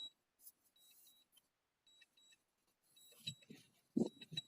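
Short, high-pitched electronic beeps repeating in small clusters from a DJI drone controller during return-to-home in strong wind, with a few faint low thuds about three and four seconds in.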